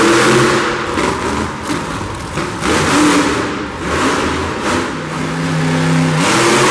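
Monster truck engines revving hard in repeated surges that rise and fall. About five seconds in one engine holds a steady pitch for a second, then drops off.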